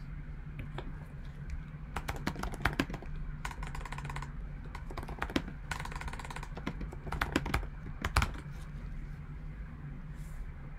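Typing on a computer keyboard: rapid key clicks in several short bursts while a web search is entered.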